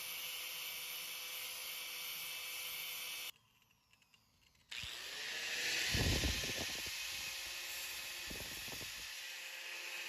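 Angle grinder dressing down a fresh weld bead on a crankshaft tone ring, a steady hiss of grinding metal. It drops out for over a second near the middle, then returns a little louder, with two brief low thumps.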